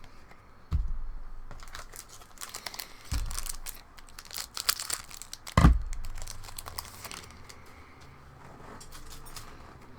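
Trading card booster pack wrapper being crinkled and torn open, with three dull thumps: under a second in, at about three seconds, and the loudest at about five and a half seconds.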